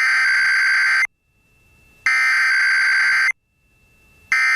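Emergency Alert System SAME header: raspy digital data tones sent in three bursts, each about a second long and about a second apart, the third starting near the end. The bursts are the alert's coded header, repeated three times, that opens an EAS message.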